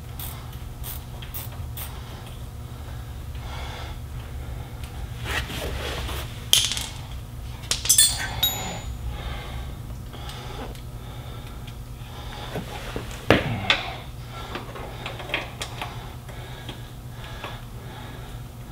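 Hand tools clicking and clinking on metal as nuts come off a truck starter's wiring terminals, over a steady low hum. The sharpest clinks come about 7 and 8 seconds in, one of them ringing briefly, and again around 13 seconds.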